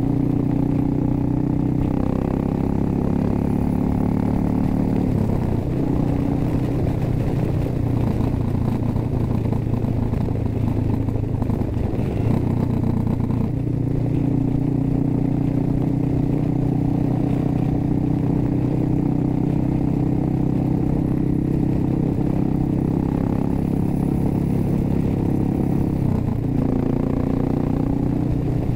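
2006 Suzuki S40 Boulevard's 650cc single-cylinder engine running steadily under way on the road, its note stepping down and back up several times as the throttle changes.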